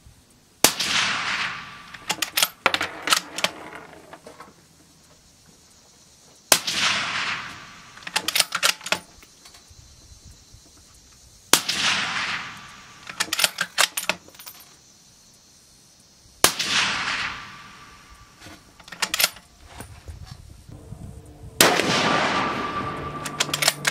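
Five rifle shots from a Remington 700 bolt-action in .308 Win, about five seconds apart, each with a short ringing tail. Between shots, quick metallic clicks as the bolt is cycled.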